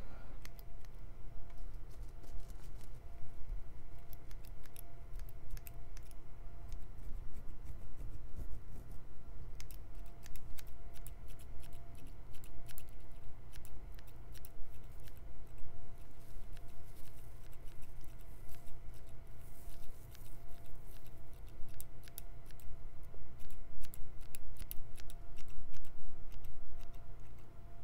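Scissors snipping close to the microphone in irregular runs of crisp clicks, thickest in the last third, over a faint steady hum.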